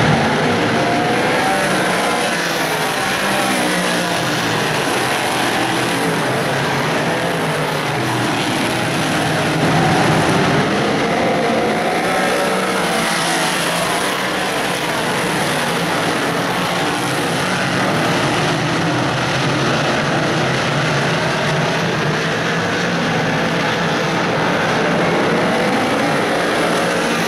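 A field of big-block modified dirt-track race cars running together around the track, their big-block V8 engines blending into a steady, dense engine noise.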